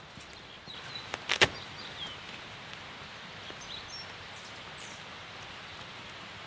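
Outdoor ambience with a steady hiss and faint bird chirps, and a few sharp clicks about a second in, the loudest near a second and a half, as hands work at the vent of a nylon tent's rain fly.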